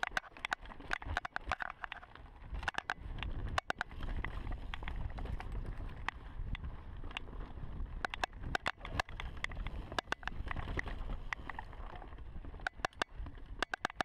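2015 Giant Reign Advanced mountain bike riding fast down a dirt singletrack: a low rumble from the ride, broken by frequent sharp clicks that often come in quick clusters.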